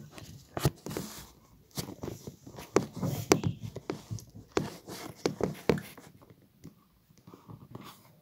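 Handling noise: an irregular run of knocks, bumps and clicks as the phone and plush toy are moved about, thinning out after about six seconds.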